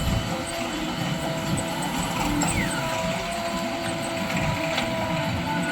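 Heavy diesel machinery running steadily, with a few faint clicks near the end and a short falling whine around the middle.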